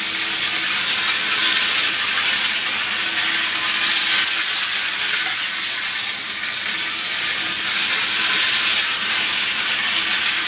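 Hornby Dublo three-rail model locomotive running around metal track: a steady hissing whirr of its motor and wheels on the rails, with a faint low hum underneath.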